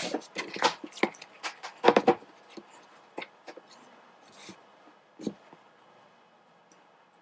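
A quick run of sharp clicks and knocks, the loudest about two seconds in, then a few scattered clicks, one stronger knock about five seconds in.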